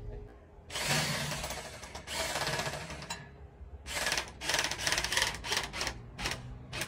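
Corded electric drill running in bursts as it drills at the steel roof frame: two longer runs of about a second each, then a quick string of short trigger pulls.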